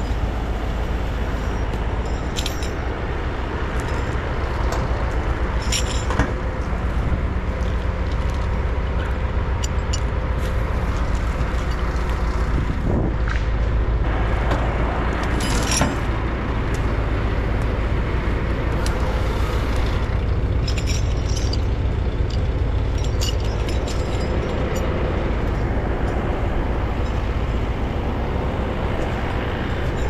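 Case Vestrum CVX tractor's diesel engine running steadily, powering a Holzknecht HS850 cable winch, with scattered light clicks and rattles.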